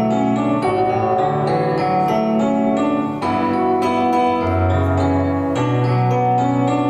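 Roland EXR-7 arranger keyboard being played: chords and a melody over low bass notes that are held and change about every second.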